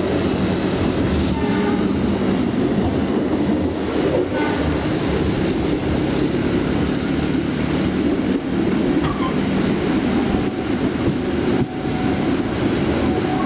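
Pasundan passenger train running, heard from inside a coach: a steady rumble of wheels on the rails, with a few faint, short tones.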